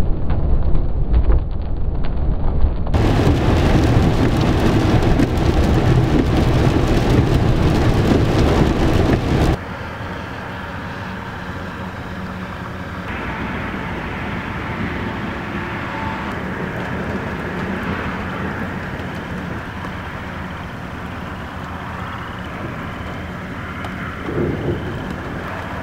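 Thunderstorm sounds at night: rumbling thunder and rain, mixed with road noise from driving on a wet highway in the first few seconds. About nine and a half seconds in, the sound drops abruptly to a quieter, steady rain hiss, with a short swell near the end.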